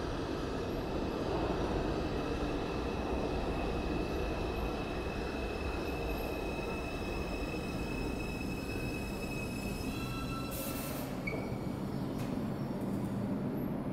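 R142 subway train running into an underground station: a steady rumble with a high, steady whine over it, and a short burst of hiss about ten seconds in.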